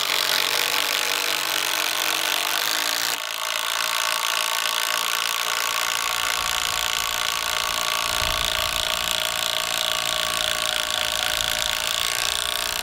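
Two cordless impact drivers hammering 3/8 x 10-inch GRK structural screws into cedar at once: a Metabo HPT MultiVolt and a DeWalt 12-volt subcompact. The MultiVolt finishes about three seconds in, and the 12-volt keeps hammering alone, slower, its screw still going down.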